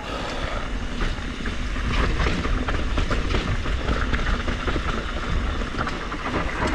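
Mountain bike, a 2021 Trek Slash 7, riding fast down rough singletrack: tyre noise on dirt and rock with a constant run of small clatters and knocks from the bike over the bumps, and wind rumbling on the helmet camera's microphone.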